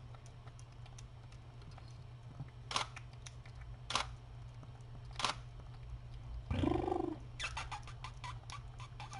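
Sharp dry clicks: three spaced about a second apart, then a quick irregular run of them near the end, over a steady low electrical hum. Just before the run, a brief low voiced sound, like a short murmur.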